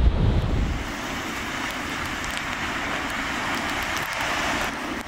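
Breaking surf and sea wash, a steady rushing hiss that swells a little about four seconds in. Wind rumbles on the microphone for the first second or so.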